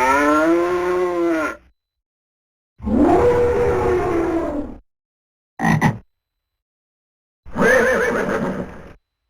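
Samsung SGH-S100 ringtone playing: four separate pitched calls cut off by dead silence between them. The first is a long call that rises and then falls in pitch, and the third is very short.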